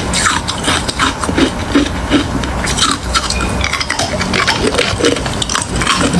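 Hard ice being bitten and chewed close to the microphone: a continuous run of sharp, crackling crunches, several a second.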